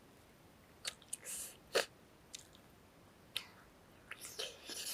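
Person chewing and eating roasted egg dipped in chili sauce: short, irregular wet mouth clicks, the sharpest just under two seconds in and a quick cluster near the end.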